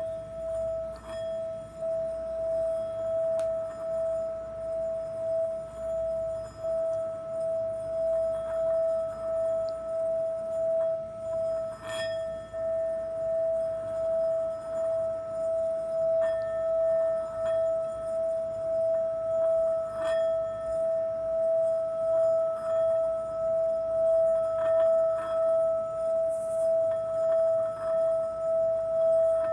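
Singing bowl sounding one held ringing tone with a few fainter higher overtones. The tone wobbles in loudness about once a second and never dies away, with faint clicks here and there.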